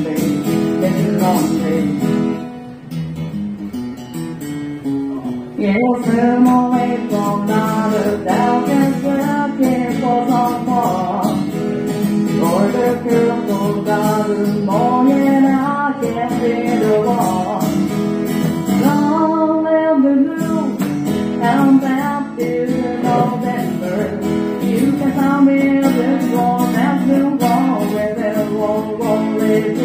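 Gibson Southern Jumbo acoustic guitar strummed steadily through a small amplifier, with a woman singing a slow country song into a microphone. For a few seconds near the start the singing drops out, leaving the guitar alone, then the voice comes back in and carries on over the strumming.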